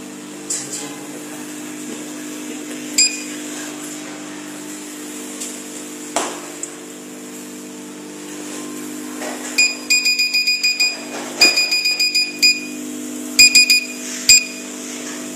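Body RF slimming machine's touchscreen beeping at each touch: a single beep, then two quick runs of about seven short beeps as the intensity buttons are pressed repeatedly, then a few more single beeps, over a steady low hum.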